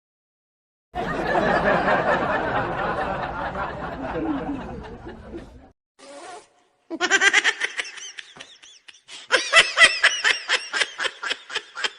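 A loud, noisy sound lasting about four and a half seconds, then laughter in quick, rapid pulses from about seven seconds in.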